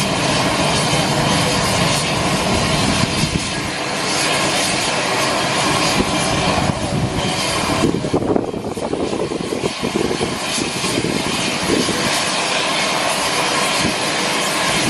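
Turboprop aircraft engines running steadily, a loud continuous drone with a high whine, the whine thinning briefly about eight seconds in.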